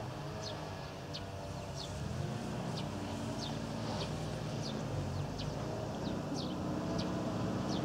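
Dnepr motorcycle's flat-twin engine idling steadily, with short high bird chirps repeating about twice a second over it.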